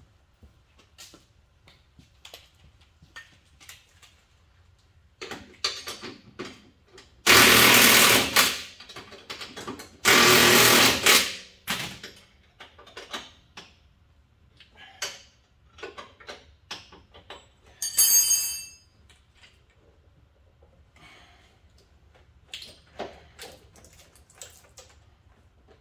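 Impact gun run in two bursts of about a second and a half each, tightening the sidecar mounting bolts down, then a shorter high whining burst, amid clinks and knocks of tools and parts being handled.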